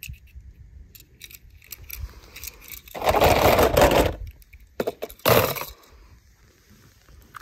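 Toy cars being handled and moved over a stone surface: scattered small clicks and clinks, a louder scraping rattle lasting about a second, about three seconds in, and two shorter scrapes soon after.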